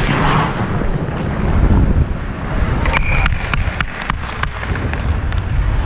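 Wind buffeting a helmet-mounted action camera's microphone as an ice hockey player skates, with skate blades scraping the ice. About three seconds in comes a quick run of sharp clacks from sticks and puck.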